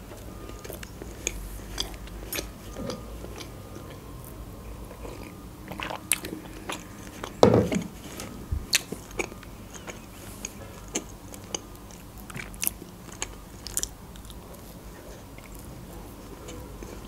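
Close-up mouth sounds of someone chewing a Kinder Delice, a soft chocolate-coated sponge cake: small wet clicks and smacks scattered throughout, with one louder, lower mouth sound about seven and a half seconds in.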